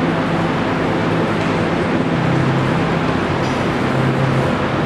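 Steady, loud rushing noise with a low hum under it; the hum drops a little in pitch about two seconds in.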